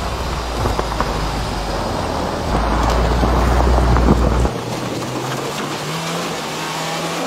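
UAZ Patriot SUV driving through snow: engine running and tyres on snow, loudest as it passes close about three seconds in. After that the rumble drops and the engine note rises and falls as it drives through a rut.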